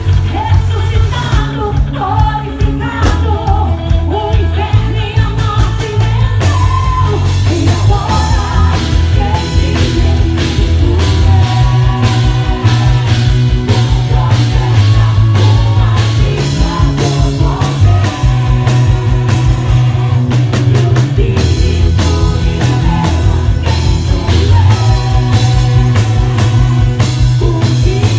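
Live band playing a rock-style worship song with a singer: drums, bass and guitar, with the drumming growing busier and harder about six seconds in.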